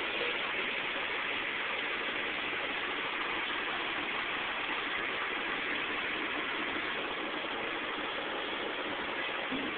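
Steady, even street traffic noise heard through a cell phone microphone, with no distinct passes or events.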